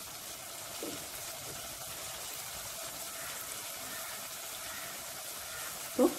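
Szechuan chilli sauce simmering steadily in a nonstick kadai, bubbling and sizzling in the oil that has separated out of it, the sign that the sauce is cooked. One brief, louder sound comes just before the end.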